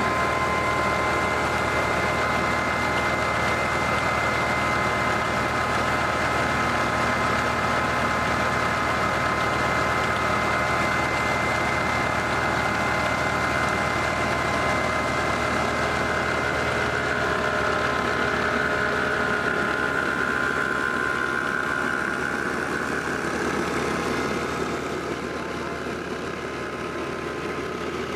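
Massey Ferguson 240 tractor's three-cylinder diesel running steadily, driving a flour mill (atta chakki) through its PTO shaft and flat belt. A steady high whine sits over the engine's low hum, and the sound gets a little quieter near the end.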